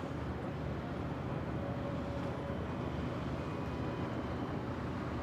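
A ship's engine running, a steady low rumble with no change.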